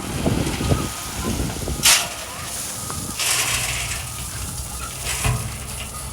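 Heavy diesel construction machinery running with a steady low engine hum, broken by several short bursts of hissing noise, the loudest about two seconds in.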